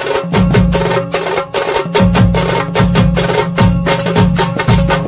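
Devotional temple percussion: drums played in a quick, steady rhythm with many fast strikes, and a deep drum beat landing about once a second.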